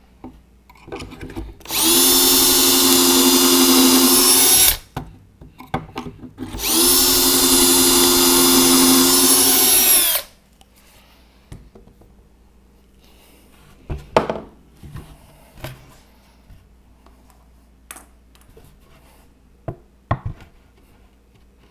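Milwaukee cordless drill boring pocket holes in plywood through a Kreg pocket hole jig: two steady runs of about three seconds each, the pitch dropping slightly as it stops. A few light knocks follow later.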